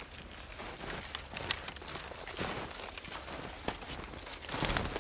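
Dry branches and twigs crackling and snapping as they are handled and broken off for firewood, in a string of sharp irregular cracks. Footsteps crunching in snow join near the end.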